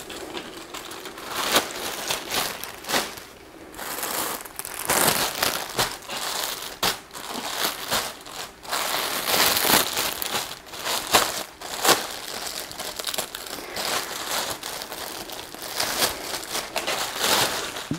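Plastic packaging crinkling and rustling in a long stretch of handling, with frequent sharp crackles, as garments are pulled from their bags.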